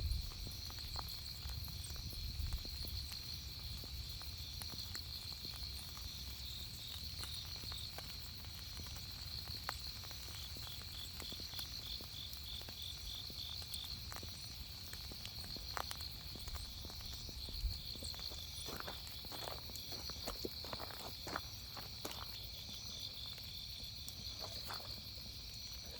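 Night insects chirping in a steady, pulsing high trill. Faint scattered clicks and pops come through it, most of them a little past the middle.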